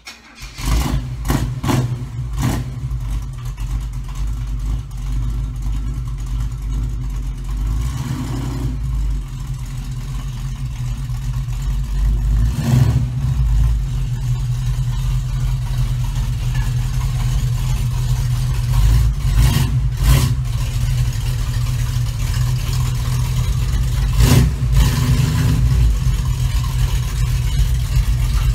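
Small-block Chevy 350 V8 of a 1936 Chevrolet coupe hot rod running at low revs, with a few short louder moments, getting gradually louder as the car is driven up into the garage.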